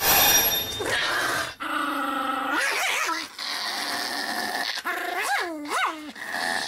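Small dog growling and snarling, loud and nearly continuous, its voice sweeping sharply up and down a few times in the middle and near the end.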